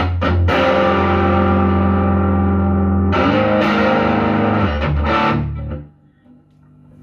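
Westminster SG electric guitar played through a Marshall JVM amp with heavy distortion: a couple of quick strummed hits, then a long held chord, and a second chord about three seconds in. The chords ring and are cut off near the end, leaving the amp's faint hum.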